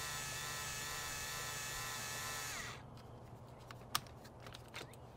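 Cordless flaring tool's motor whining steadily as it works the copper line-set end, then winding down and stopping a little under three seconds in, followed by a few light clicks of the tool being handled.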